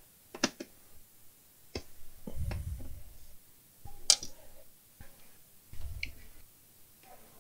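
Handling noises from objects being moved and set down on a workbench, most likely the TV's power supply board: scattered clicks and light knocks, two brief low thumps, and one sharp click about four seconds in.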